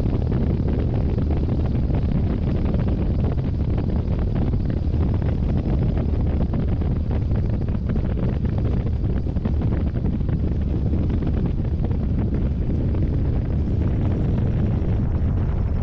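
Extra 330LX aerobatic plane's six-cylinder Lycoming engine and propeller running steadily in the open cockpit with no canopy, mixed with heavy wind buffeting on the microphone.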